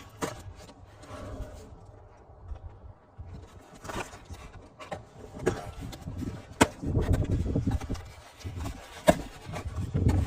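Spray paint cans and cardboard packaging being handled during unpacking: rubbing and scraping, with several sharp knocks as cans are set down or bump together.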